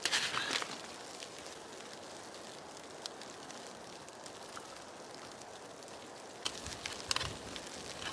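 Small wood campfire crackling with a steady hiss and scattered sharp pops. Short louder bursts of noise come at the start and again about six and a half seconds in.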